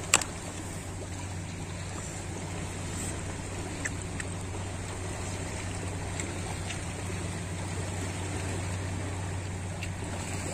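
Steady background noise with a low, constant hum underneath, and a single sharp click right at the start.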